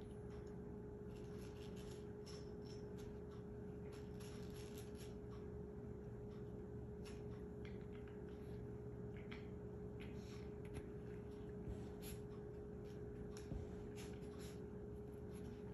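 Faint steady hum with scattered light ticks and rustles.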